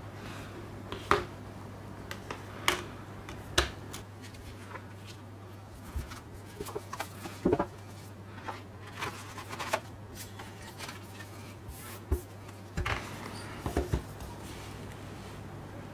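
Gloved hands handling a Blu-ray disc case and its cardboard slipcase: scattered taps, clicks and rustles of plastic and card, with a cluster of louder knocks in the middle and another near the end. A steady low hum sits underneath.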